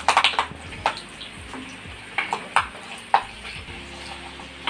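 Tempering frying in hot oil in an iron kadai: dry red chillies, peanuts, lentils and cashews sizzle steadily while a steel ladle stirs and scrapes them. The ladle clinks sharply against the pan several times.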